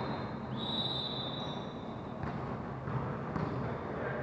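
Gym hall noise with a single steady, high whistle blast lasting over a second, typical of a referee's whistle signalling the serve in a volleyball match. A few light knocks follow.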